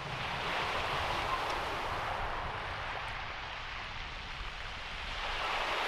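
Small waves washing onto a shingle beach: a steady hiss of surf with a low rumble underneath, swelling again near the end.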